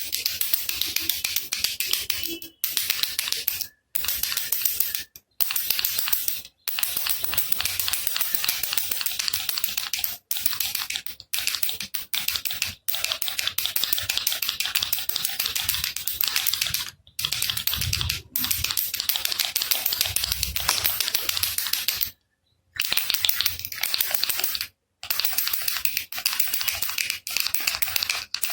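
Baby rattle shaken continuously: a dense, fast rattling clatter, broken by about a dozen short gaps where it stops dead.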